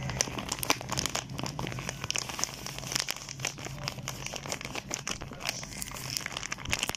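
Crinkling and crackling of a packet as cornflour is poured into a bowl of flour: a dense, uneven run of small crackles and ticks.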